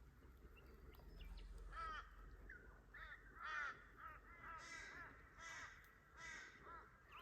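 A crow cawing faintly: a run of short, repeated calls that begins about two seconds in.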